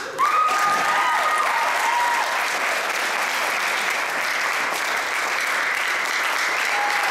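Audience applause breaks out suddenly as a choir piece ends and holds steady, with a couple of voices whooping in the first second or so.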